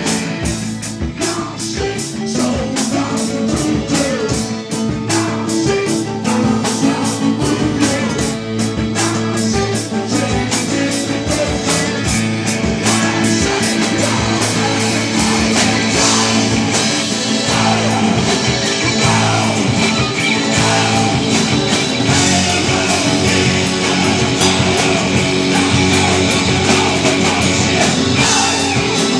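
Live rock band playing a song with acoustic guitar, electric guitar, bass, drums and keyboard over a quick steady beat. Several voices sing together from about halfway through.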